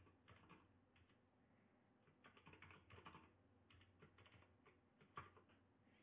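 Faint computer keyboard typing: short runs of key clicks with brief pauses between them.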